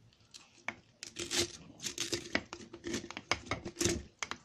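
Wooden spatula pressing chunks of cabbage, beetroot and carrot down into a glass jar of brine: irregular crunching and knocks, starting about a second in.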